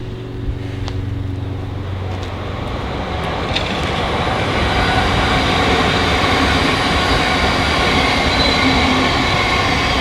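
Rumbling vehicle noise with a faint high whine, growing steadily louder over the last several seconds.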